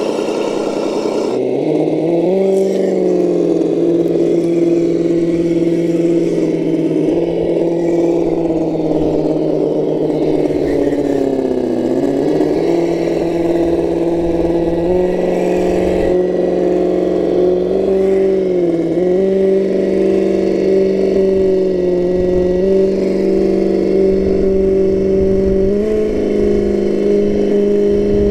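Simulated V8 engine sound from a Reely V8 sound module in a 1:10-scale RC crawler, played through its small onboard speaker: a steady engine note that rises and falls with the throttle, dipping twice around the middle and stepping higher a few times.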